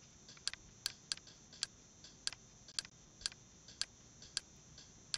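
A faint series of about ten short, sharp clicks, roughly two a second and slightly uneven, as a media-player menu is stepped through one item at a time.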